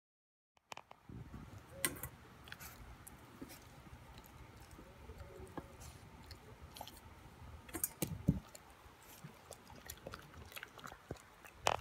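An 11-week-old Boston Terrier puppy chewing raw broccoli, with irregular crunches and sharp clicks of its teeth. The sound begins under a second in, out of silence.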